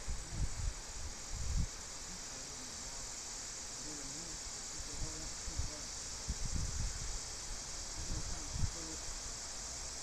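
Steady high hiss in the background, with a few soft low thumps from hand work under the hood at the carburettor and faint muttering now and then.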